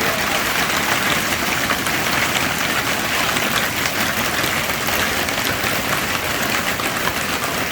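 Small hailstones falling steadily, a dense hiss made of countless tiny ticks as they hit hard surfaces.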